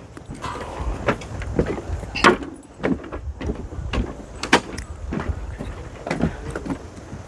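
Footsteps of someone walking downhill on a hard path, roughly two short knocks a second, over a low rumble.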